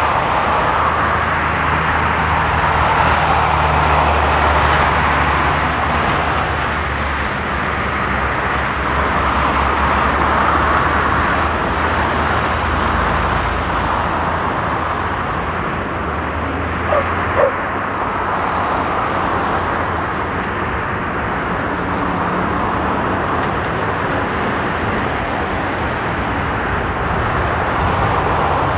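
Boeing 787-9's Rolls-Royce Trent 1000 turbofans at take-off thrust: a steady jet roar as the airliner rolls, lifts off and climbs away. Two short sharp sounds stand out a little past halfway through.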